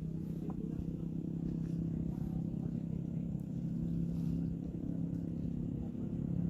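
A motor running with a steady, unchanging hum.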